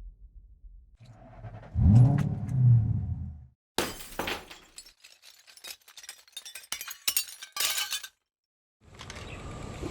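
Sound effects: a loud engine-like rumble that rises and falls in pitch, then glass shattering with pieces clattering for about four seconds. A steady rumble starts near the end.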